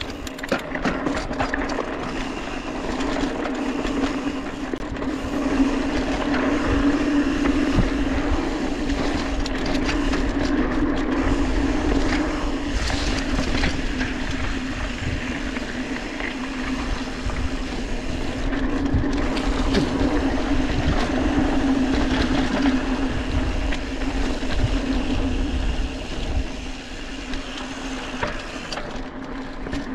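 Mountain bike rolling down a dirt singletrack, tyres crunching over dirt and gravel, with a steady humming drone that swells and fades and a low rumble with scattered small knocks from the trail.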